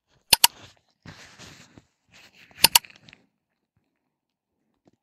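Mouse-click sound effects from a like-and-subscribe animation: a quick double click near the start and another about two and a half seconds later, with a soft hiss between them.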